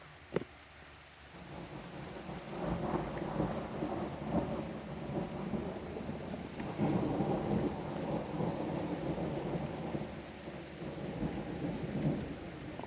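Thunder rolling for about eleven seconds, swelling and ebbing several times before dying away near the end, with rain falling beneath it. A single sharp click comes just before the rumble begins.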